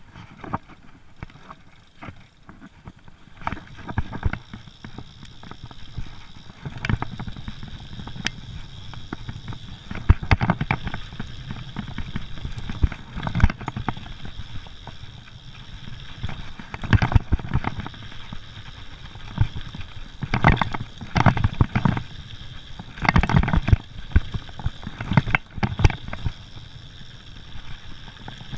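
Mountain bike descending a rough dirt forest trail, heard from a camera riding on the bike and rider: a steady rumble of tyres over the ground, broken by frequent, irregular sharp knocks and rattles as the bike hits roots and bumps.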